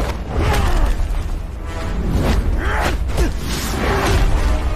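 Fight-scene sound effects of heavy hits and crashes with a deep rumble underneath, over background music.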